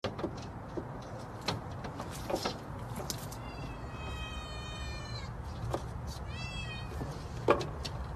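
Kitten meowing twice: one long, slightly falling meow a few seconds in, then a shorter one, with a few sharp clicks, the loudest near the end.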